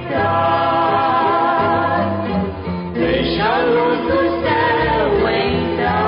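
Portuguese gospel hymn: voices singing long held notes over instrumental accompaniment, with a falling sung phrase about halfway through.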